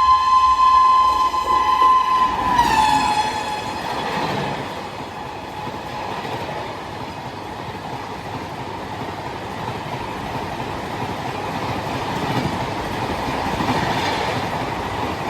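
WAP-7 electric locomotive's horn sounding one loud, steady blast that drops in pitch as the locomotive passes about two and a half seconds in, then stops. The express's coaches then rush past at full speed with a steady noise of wheels on the rails.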